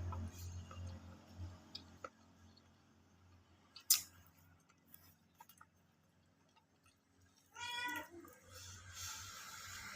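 A cat meows once, briefly, near the end. About four seconds in there is a single sharp click, with a few faint ticks around it.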